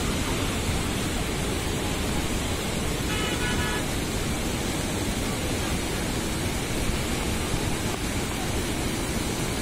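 Floodwater from the overflowing Khadakwasla Dam rushing over a stepped weir, a loud steady rush of churning water. A brief horn toot sounds about three seconds in.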